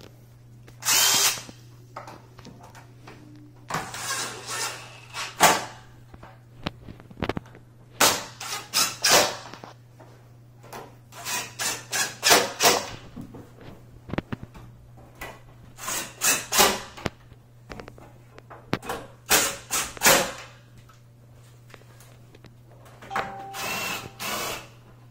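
DeWalt cordless drill with a six-inch extension and long Phillips bit driving screws into wooden bed slats, in short repeated bursts with brief pauses between screws.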